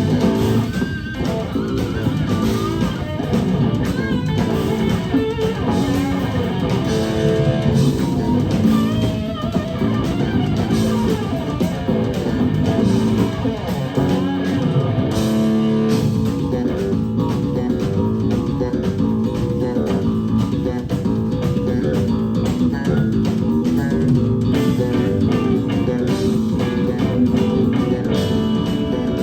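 Live instrumental rock-fusion band playing: electric guitar lines over bass guitar and drums.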